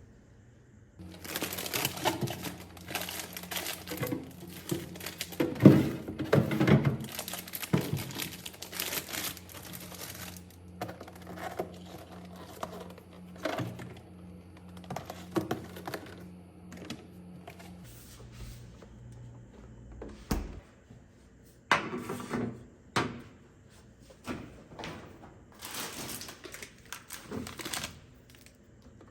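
Household handling sounds: packaging crinkling and rustling, with items clicking and knocking, over a low steady hum that stops about two-thirds of the way through. A sharp knock comes a little after the hum stops, followed by further clicks and rustles.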